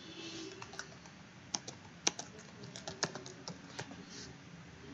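Typing on a computer keyboard: a dozen or so quiet, irregularly spaced key clicks.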